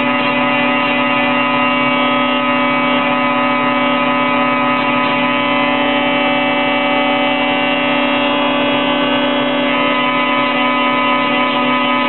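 Woodworking spindle moulder running at speed, a steady drone with a strong low hum and a higher whine, while a wooden board is fed along its fence past the cutter. The upper tones shift a little partway through.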